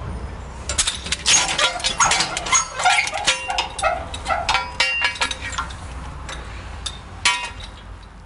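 Steel drop-test mass falling on a 120 cm Dyneema sling from the drop tower and being caught. It is followed by a few seconds of rapid metallic clanking and rattling, with some ringing, as the rig bounces and swings.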